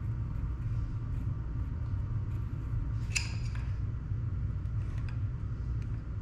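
A steady low rumble throughout, with a sharp metallic click about three seconds in and a few faint ticks later as an adjustable wrench is handled and set onto a brass shower valve body.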